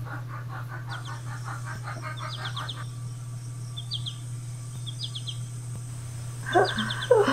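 Birds chirping in short quick groups of high notes, repeating every second or so, over a steady low electrical hum. A rapid pulsing sound runs through the first few seconds, and a louder, lower sound comes twice near the end.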